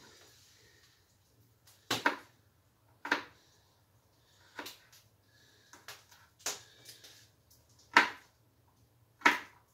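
Sharp knocks and taps of hands-on kitchen work while peeling garlic cloves, about seven of them, irregularly spaced, with quiet between.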